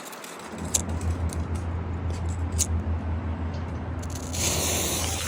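A small handheld smoke firework being lit: a couple of sharp clicks, then a steady hiss that grows brighter and louder about four seconds in as the firework starts spraying.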